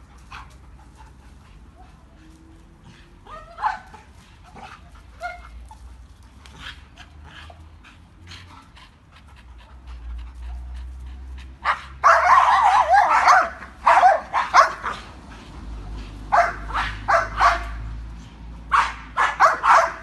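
Dog whining faintly a few times, then from about halfway barking loudly in quick runs of several barks at a bird up in the tree.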